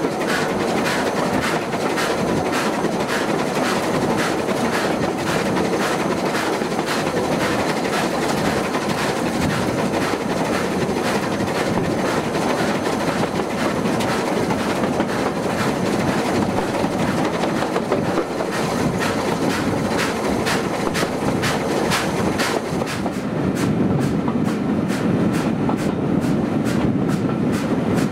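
Steam-hauled passenger train behind Bulleid West Country Pacific 34046 Braunton running at speed, heard from an open carriage window. There is a steady rush of wheels, rails and passing air, with rapid clicking, and the sound turns deeper and duller near the end.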